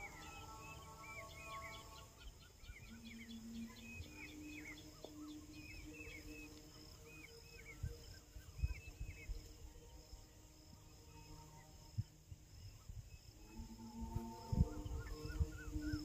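Birds calling outdoors, a quick series of short chirps repeated many times, fading out midway and starting again near the end, over a low wind rumble on the microphone with a few knocks late on.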